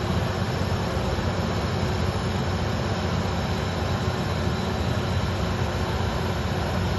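Steady vehicle noise: an unbroken low rumble with a hiss over it.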